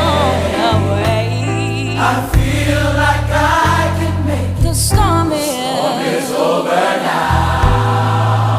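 Gospel-style music: a choir singing over a deep, held bass line.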